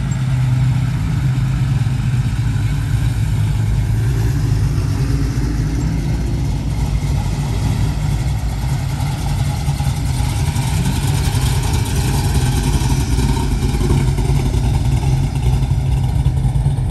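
Engines of classic cars running at low speed as they roll slowly past, a steady deep engine note throughout.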